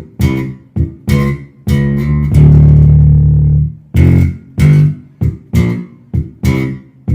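Lakland 55-02 electric bass played fingerstyle and picked hard, giving an almost slappy attack: a run of short staccato notes with muted ghost notes, one low note held for over a second about two and a half seconds in, then more short notes.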